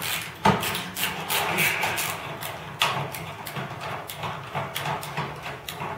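Screwdriver and metal parts clicking and knocking against an old magnetic fluorescent ballast and the fixture's sheet-metal housing as the ballast is unfastened, in a run of irregular sharp clicks.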